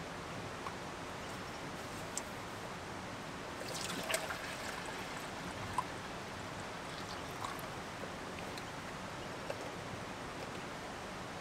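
Camp stove gear being handled in a small fabric pouch: soft rustling, loudest about four seconds in, and a few light clicks and taps, over a steady outdoor hiss.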